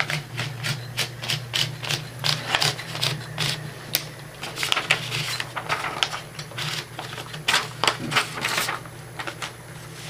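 A 1960 Smith Corona Electra semi-electric typewriter's motor hums steadily while paper is fed in. Over the hum come many irregular clicks, ratcheting and paper rustling as the sheets go behind the platen and the platen knob is turned.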